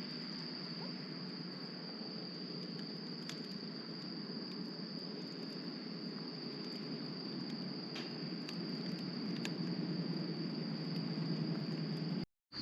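Crickets trilling as one continuous, steady high-pitched note, over a steady low rushing sound, with a few faint crackles.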